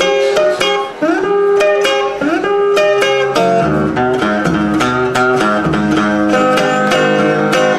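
Acoustic guitar picking an instrumental country-blues passage, with a rising bent note repeating about once a second. About three and a half seconds in, it moves to fuller chords with bass notes.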